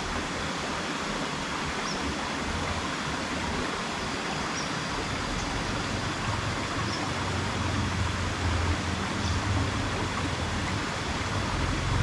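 Steady rush of flowing river water, with faint short high chirps repeating every second or two.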